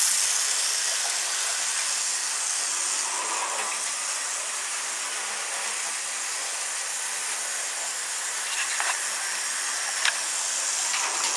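Tyco HO-scale model diesel train running on its track: a steady high-pitched hiss of wheels and motor, loudest as the cars pass close at the start, fading and then swelling again near the end. A few sharp clicks near the end, like wheels crossing rail joints.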